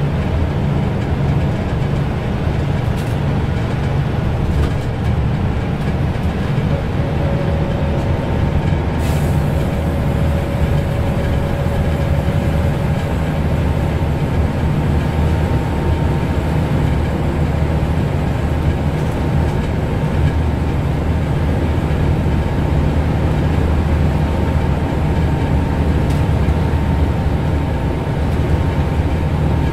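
Inside a Scania L94UB Lahti Scala city bus cruising at steady speed: a loud, even drone from the engine and driveline, with road and tyre noise. A faint whine comes and goes in the middle.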